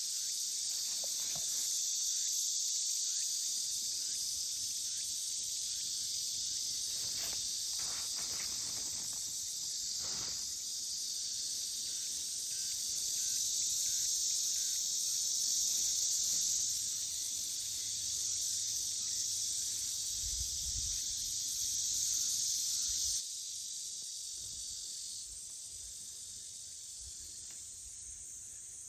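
Steady high-pitched chirring of an insect chorus, swelling and fading slowly, and dropping noticeably quieter about two-thirds of the way through.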